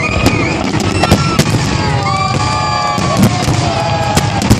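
Fireworks going off: a rapid, irregular string of sharp bangs and crackles over a dense low rumble.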